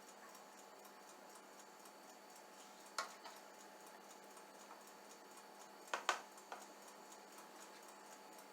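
Faint clicks of metal tongs against a tray as a cyanotype print is lowered into a citric acid bath: one click about three seconds in, a quick pair about six seconds in. Underneath is a faint steady hiss with light regular ticking.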